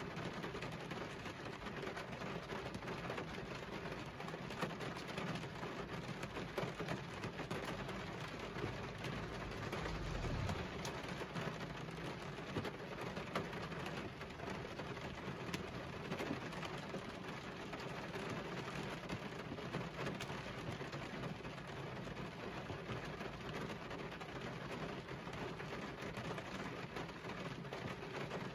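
Heavy rain drumming steadily on a car's windscreen and body, heard from inside the car.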